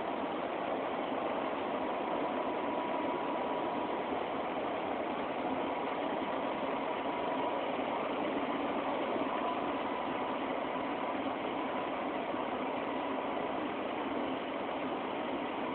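Steady engine-like drone of heavy machinery, unchanging throughout, with a faint constant whine, heard thin and hissy through a phone microphone.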